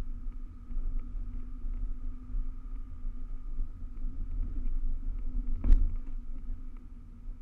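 Car driving slowly over a rough dirt track, heard from a camera on its bonnet: a steady low rumble of engine and tyres with small rattles, and one sharp thump just before six seconds in as the car hits a bump.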